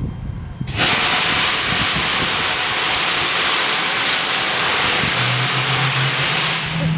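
Loud, steady rushing hiss of an English Electric Lightning's engine starter spinning up a Rolls-Royce Avon turbojet, starting abruptly and cutting off after about six seconds. A low hum comes in near the end as the engine begins to turn.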